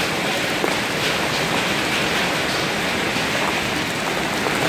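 Heavy rain mixed with small hail falling on a paved road and a concrete sidewalk: a steady, dense hiss.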